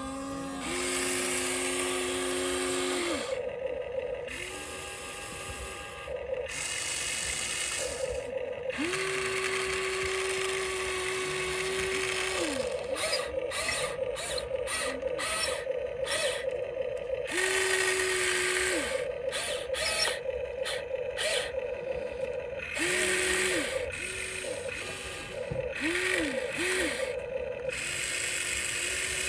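Small electric gear motors of Huina radio-controlled construction models whining in start-stop runs of one to a few seconds as the functions are worked. The pitch changes from run to run, and gears rattle throughout.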